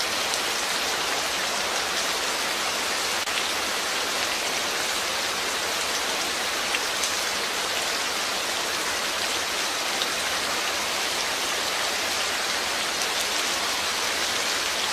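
Heavy downpour: rain falling steadily on a wet cobbled street and roofs, an even hiss with scattered drop ticks.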